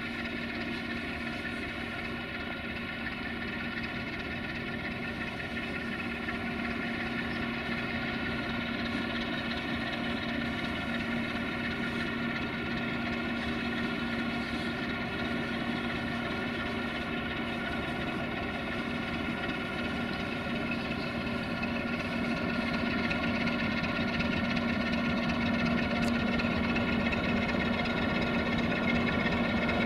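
Sulzer six-cylinder diesel engine of a CFR 060-DA (LDE2100) diesel-electric locomotive running at a steady pitch as it hauls a train of tank wagons slowly closer, growing gradually louder.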